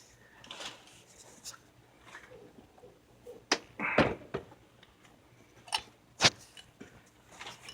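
A few scattered clicks and knocks from the vintage Homelite XL chainsaw being handled, the loudest a short knock about four seconds in.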